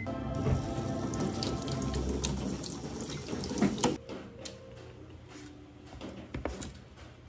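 Water running from a tap into a stainless kitchen sink for about four seconds, then stopping. After it come a few light scrapes as a potato is peeled on a wooden board.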